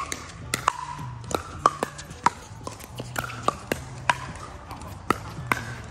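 Pickleball paddles hitting a plastic pickleball in a rally: an irregular run of sharp, hollow pops, some close together and some spaced out, with fainter pops from play on neighbouring courts.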